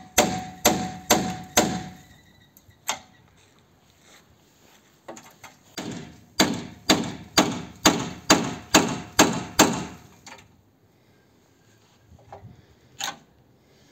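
Hammer blows, about two a second: a run of four, a single blow, then a longer run of about ten, and one more near the end.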